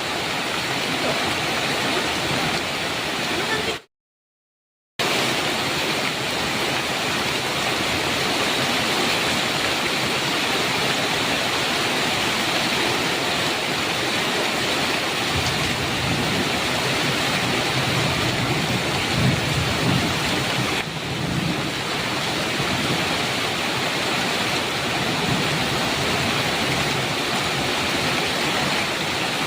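Heavy rain falling in a steady hiss, with a low rumble of thunder rolling through the middle section. The sound cuts out completely for about a second near the start.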